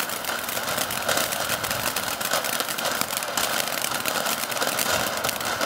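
TNT Fireflies ground fountain firework spraying sparks: a steady hiss thick with fine crackles.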